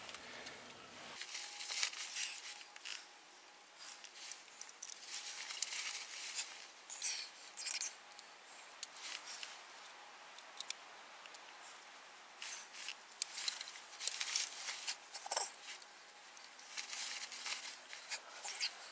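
Irregular small clicks, ticks and rustles of a flintlock muzzleloader being loaded by hand at the muzzle, along with the rustle of a jacket, and one duller knock late on.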